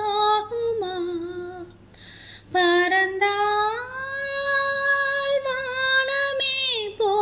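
A woman singing a Tamil song unaccompanied, one voice alone. A short phrase, a breath pause about two seconds in, then a long held note that slides down near the end.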